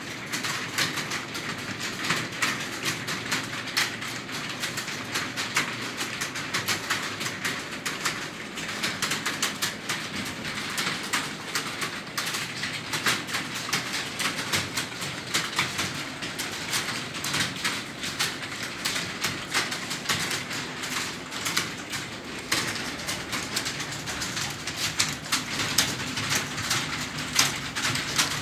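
Computer keyboard being typed on quickly and continuously: a fast, uneven patter of key clicks.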